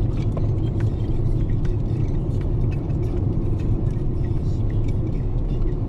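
Car driving, a steady low rumble of road and engine noise, with faint scattered ticks.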